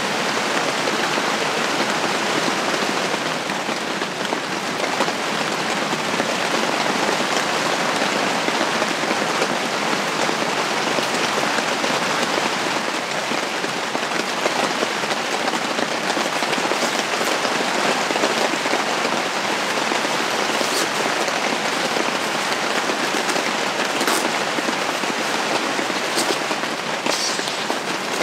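Steady rain falling, an even hiss of many drops without a break, with a few sharper ticks in the last ten seconds.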